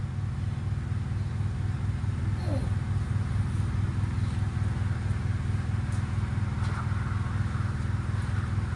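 1976 John Deere 300 garden tractor's starter cranking the engine steadily with a fast even pulse, the engine not catching. The owner suspects the battery isn't strong enough.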